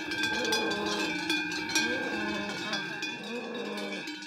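Large cowbells on the collars of Hérens cows clanging irregularly, several bells ringing at once, fading out near the end.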